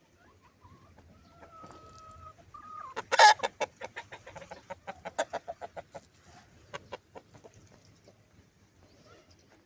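Chickens clucking: a couple of drawn-out calls, then a loud squawk about three seconds in followed by a fast run of clucks that slows and fades out.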